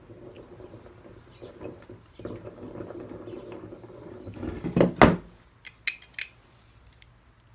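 Harbor Freight Pittsburgh 3/4 in pipe clamp being cranked, its screw turning with a grainy whirr. About five seconds in comes a quick rising sweep that ends in a sharp metal clank, followed by a few short clicks.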